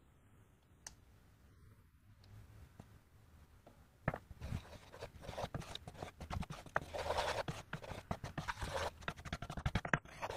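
A wooden spoon stirring cream into a thick tomato sauce in a nonstick frying pan, with irregular scraping and clicking against the pan. It starts about four seconds in after a quiet start and gets busier toward the end.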